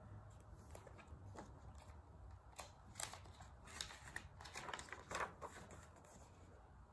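Faint paper rustling and crackling as a picture book's page is turned, a flurry of short rustles about three to five seconds in.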